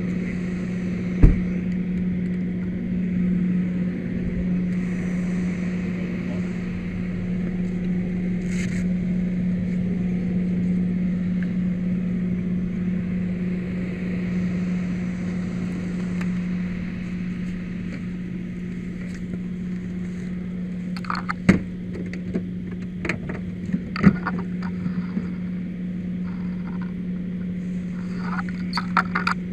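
A steady engine hum from a vehicle idling at the scene. A sharp knock comes about a second in, and a few more knocks and clatters of handled gear come near the end.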